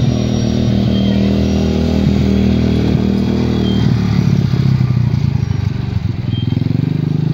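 Small quad bike (ATV) engine running as it drives up and passes close by, its note shifting about four seconds in as it goes past.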